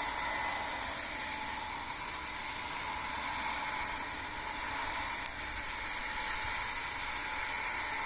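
Corn harvest machinery running steadily, a constant hiss with a steady whine, and one sharp click about five seconds in.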